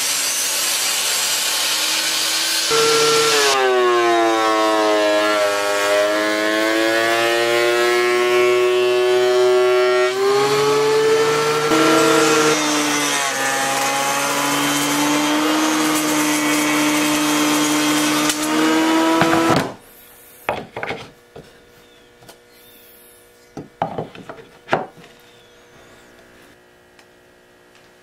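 Woodworking power tools cutting and working eastern red cedar boards: first a Ryobi table saw, then a Porter-Cable benchtop machine, the motor's pitch dipping and recovering several times under load. About two-thirds of the way through the motor stops abruptly, followed by a few knocks of boards being handled.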